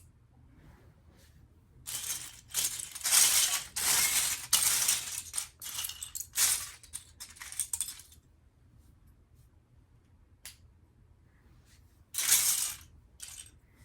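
Loose plastic Lego bricks clattering and rattling as hands rummage through a pile of pieces, in a dense run of about six seconds, a few single clicks, then another short burst near the end.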